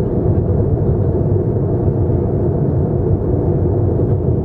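Jet airliner cabin noise in cruise flight: a steady, even low rumble of the engines and airflow, heard from inside the cabin.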